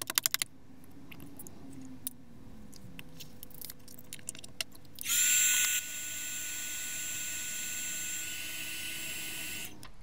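Handheld embossing heat gun switched on about halfway through, its fan blowing with a steady hiss and a thin high whine while it melts embossing glaze powder on cardstock; it is loudest for the first second, then runs evenly and cuts off just before the end. Before it, a quick run of light taps at the start, then a few faint clicks.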